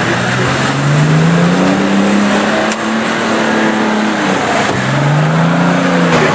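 Off-road 4x4 engine revving under load: the pitch climbs and holds, drops off, then climbs and falls again near the end.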